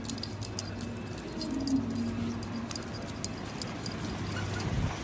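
Small metal tags on a dog's collar jingling in irregular little clinks as the dog walks, over a steady low background hum.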